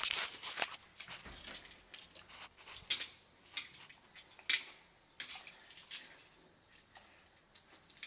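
Screwdriver and plastic wall-socket mechanism being handled at an electrical flush box: a sharp click at the start, then scattered light clicks, taps and scrapes.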